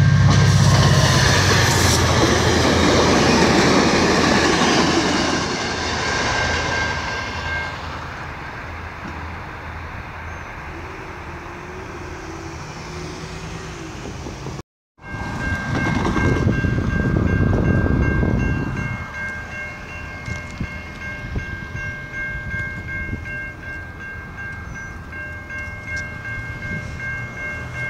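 A diesel-hauled train rumbles through a level crossing, loudest in the first several seconds. The crossing's warning bell rings through both halves of the clip, and after a short break a second loud rush of noise passes.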